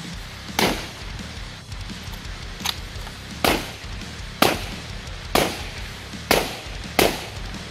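Seven gunshots from long guns fired from the shoulder, one of them fainter, most of them about a second apart, over background heavy-metal music with electric guitar.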